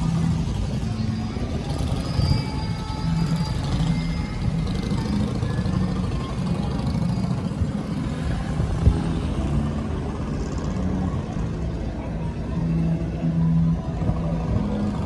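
Outdoor city ambience: a steady low traffic rumble with music playing in the background, and one sharp click about nine seconds in.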